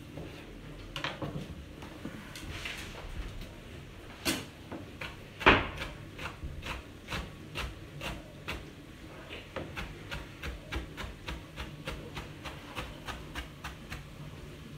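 Chef's knife chopping tomatoes on a plastic cutting board: sharp knocks of the blade on the board, uneven at first, then a steady run of about three a second, with one louder knock about five seconds in.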